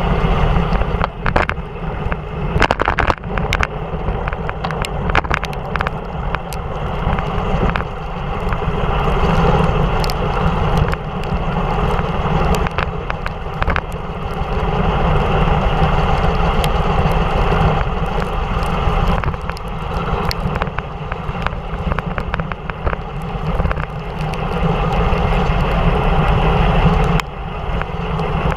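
Steady rush of wind and wet-road tyre noise from a bicycle descending fast in heavy rain, with scattered short knocks and rattles through it.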